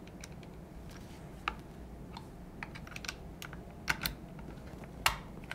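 Scattered light clicks and taps of shotgun parts being handled while the bolt pin of an Eternal Attacker FX-3 shotgun is pushed into place. The sharpest click comes about five seconds in.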